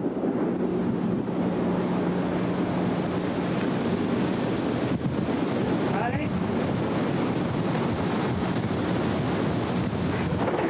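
Wind rushing over a camcorder microphone in a steady roar, with a low steady hum through the first few seconds.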